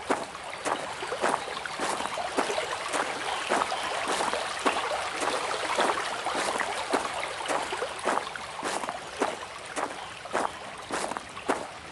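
Running water: a steady rush broken by many irregular small splashes and drips.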